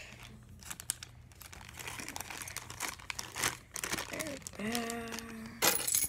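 Crinkling and rustling of packaging with scattered small clicks and knocks as a pair of handcuffs is packed back into its box, ending in a louder rustle.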